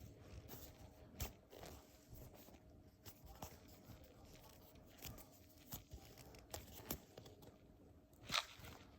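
Faint handling noises of squishy toys being picked up, set down and squeezed: scattered soft taps and rustles, with a louder rustle about a second in and the loudest one near the end.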